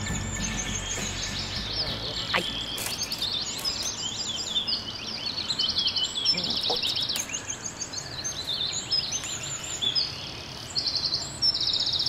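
Several songbirds singing and chirping, with quick high trills and rapidly repeated notes, as a piece of music fades out within the first second.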